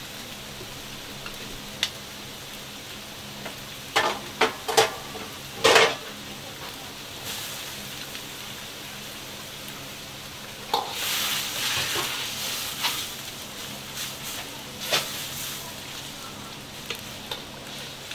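Steel ladle stirring a wok of simmering broth, knocking sharply against the wok a few times around four to six seconds in, with a stretch of louder bubbling and sizzling about eleven to thirteen seconds in. A steady low hum runs underneath.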